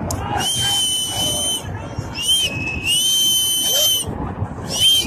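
Shrill whistle blasts, about four of them: two long held ones of over a second each, a short one between them and a short one near the end, each sliding up at the start and down at the end. A steady rushing noise runs underneath, the floodwater.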